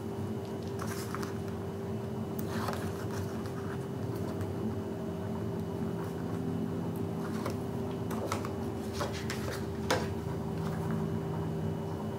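Paper and cardstock being handled on a craft table: soft rustles and a few light clicks as the pattern paper is worked at its edge and laid down, over a steady low hum.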